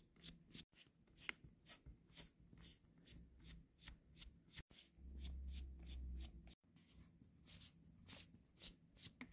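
Faint, steady run of small ticks, about three to four a second, from a precision screwdriver turning out the small screws that hold a Razer Blade laptop's battery in place. A low rumble joins for about a second and a half around the middle.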